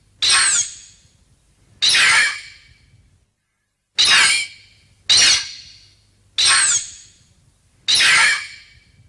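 Mothra's film cry: a shrill, squeaking screech repeated six times, each call short and wavering in pitch before trailing off.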